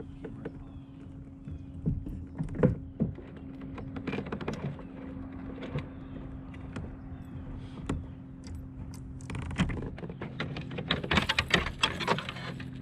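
Knocks, clicks and rattles of gear being handled in a fishing kayak as a just-caught bass is brought aboard and handled, with a denser run of clicking and rattling near the end. A steady low hum runs underneath.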